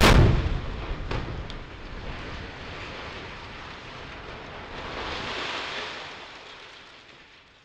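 Industrial demolition charges detonating: one sharp blast, two more cracks about a second later, then a long rumble that swells again around five seconds in and fades toward the end.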